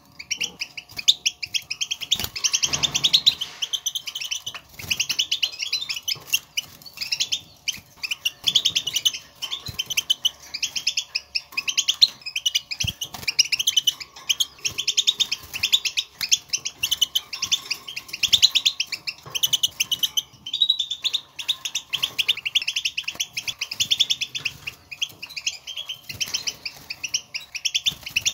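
European goldfinch chattering calls: rapid, high twittering notes in close-packed bursts, with hardly a break. This is the 'batbata' contact chatter that goldfinches use to call to one another and signal their presence, and it is known for setting caged goldfinches singing.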